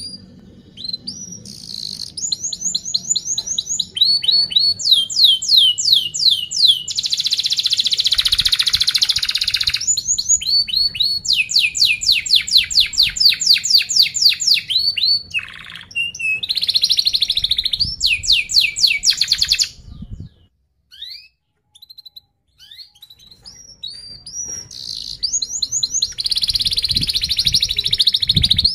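Domestic canary singing: fast trills of repeated high notes and dense, buzzing rolls. The song breaks off for a couple of seconds about two-thirds of the way in, then resumes.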